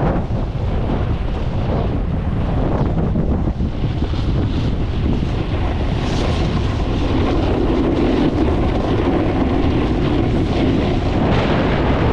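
Wind rushing over a helmet-mounted camera's microphone as a snowboarder rides downhill, mixed with the hiss and scrape of the board sliding over hard snow.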